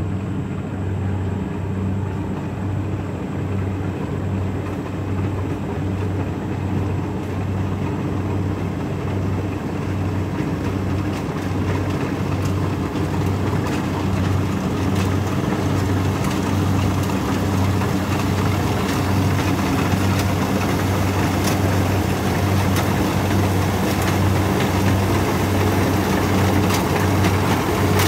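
Kubota DC60 combine harvester running steadily, a low engine hum with an even pulse. It grows louder as the machine comes closer through the rice field, with faint clicking in the second half.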